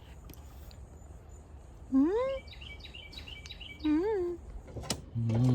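Birds calling: a rising call about two seconds in, a quick run of high chirps, then a shorter rise-and-fall call, over a low steady background hum. A low steady droning tone starts near the end.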